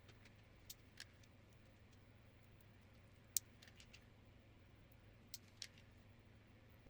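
A few scattered, sharp plastic clicks and taps from mechanical keyboard parts being handled, with near silence between them; the loudest click comes about halfway.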